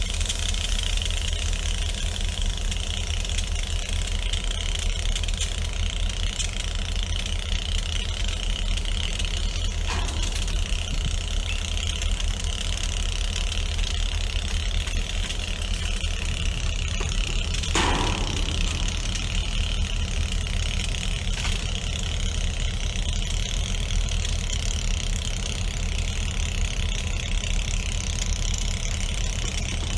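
Diesel freight locomotive running steadily: a low engine rumble with a steady hiss above it.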